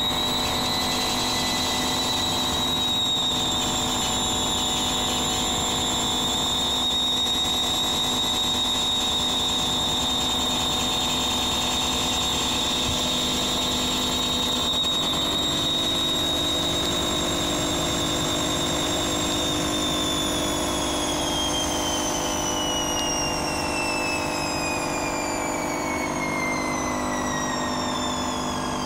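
Indesit Evolution W161 washing machine on its delicate spin: the motor's high whine holds steady at top spin speed, then falls steadily in pitch over the last third as the drum slows down.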